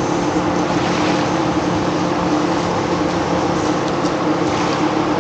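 Steady mechanical hum with several fixed tones over a wash of noise, running at an even level.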